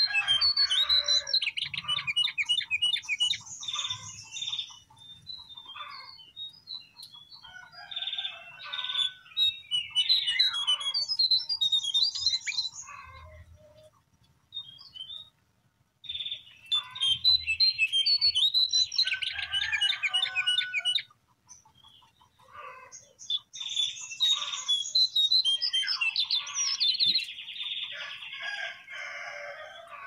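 Lesser shortwing (cingcoang coklat) song: four phrases of rapid, high twittering warbles and trills, each a few seconds long, separated by short pauses.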